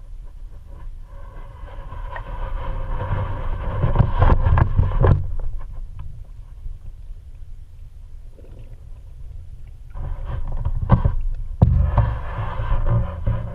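Underwater rumble and rush of moving water against the camera, swelling twice into louder surges with crackling and knocks.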